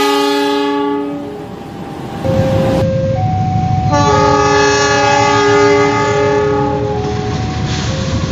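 Diesel locomotive horn sounding twice: a short blast in the first second or so, then a longer blast of about three seconds. The second blast sounds over the steady low rumble of the locomotive's diesel engine as it approaches.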